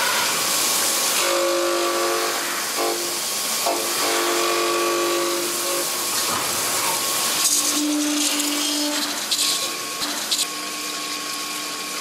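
Glass corner grinding machine at work: coolant water sprays onto the glass with a steady hiss. Over it a humming tone of several pitches comes and goes, as the grinding heads work the corners of the pane.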